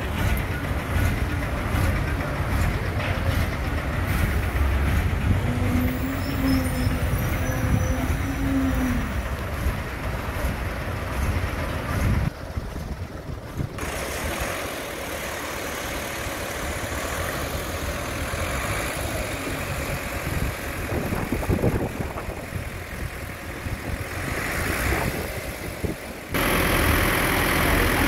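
Diesel engines of a concrete mixer truck and a truck-mounted concrete pump running steadily while concrete is fed into the pump. The sound drops abruptly to a quieter, thinner rumble about twelve seconds in and comes back louder near the end.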